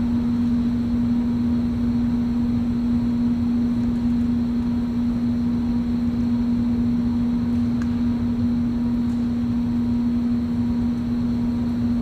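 A steady hum at one constant pitch over a low, even rumble, unchanging throughout.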